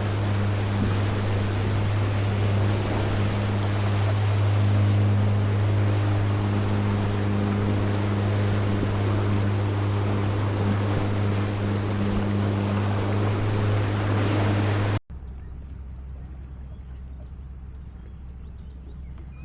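A river boat's engine running at a steady pitch, with rushing wind and water over it. About three-quarters of the way in the sound cuts off abruptly to a much quieter background.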